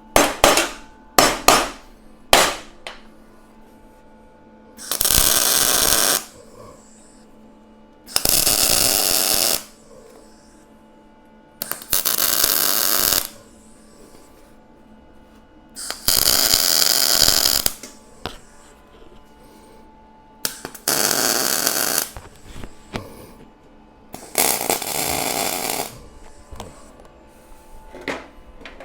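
Welding arc laying tack welds on steel plate: six short bursts of crackling, each about one and a half to two seconds, a few seconds apart, with a few sharp clicks of handling in the first couple of seconds.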